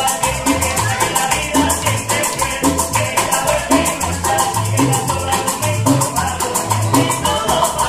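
Small Cuban band playing salsa live: maracas shaking in a steady, fast rhythm over a plucked upright bass line and strummed guitar.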